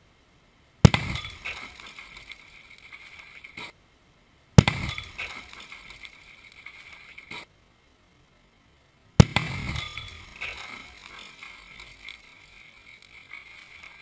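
Cobra 6 firecracker exploding in a refrigerator: a sharp bang, then a few seconds of debris clattering and crackling. It is heard three times, about four seconds apart, and each time it cuts off abruptly into dead silence.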